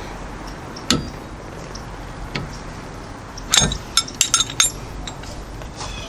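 Steel socket wrench and socket clinking: a sharp click about a second in, then a quick run of ringing metallic clinks between three and a half and five seconds in.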